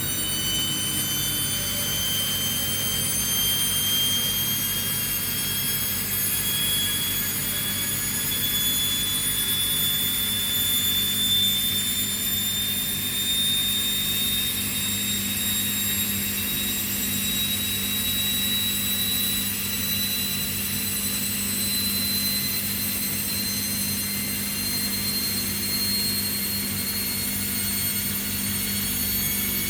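Two washing machines, a Bosch and a Hoover, in their final spin. Their motors whine high and climb slowly in pitch as the drums speed up, over a steady low hum.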